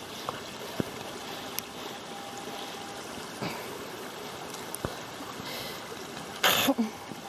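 Creek water flowing steadily, with a few small clicks and a short, louder burst of noise near the end.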